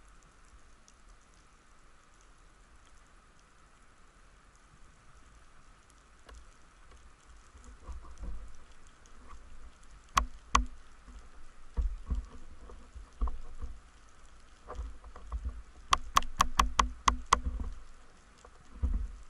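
Underwater sound picked up by a diver's camera: a faint, even hiss at first, then low bumps with sharp clicks and knocks. Two loud clicks come about ten seconds in, and a quick run of about eight clicks comes near the end.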